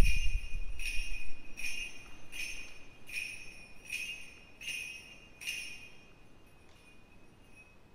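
Suzu bells shaken in a slow, even rhythm, about eight shakes at a little over one a second, each ringing out. The shakes grow fainter and stop about six seconds in.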